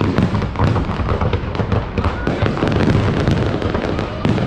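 Fireworks display going off: a rapid, continuous barrage of bangs and crackles over a deep rumble of launches and bursts.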